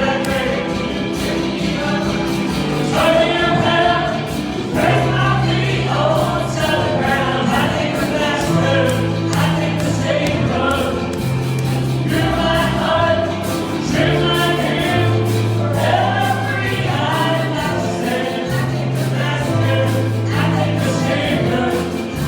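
A group of voices singing a gospel hymn over instrumental accompaniment, with a slow bass line of held notes changing every second or two.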